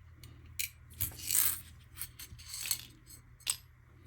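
Small metal parts clinking and rattling as they are handled: scattered sharp clicks, with two brief jingling rattles about a second in and again past two and a half seconds, then a sharp click.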